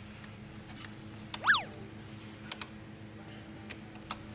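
A short cartoon-style 'boing' sound effect about a second and a half in, a quick pitch sweep up and back down, over a steady low hum, with a few faint clicks later on.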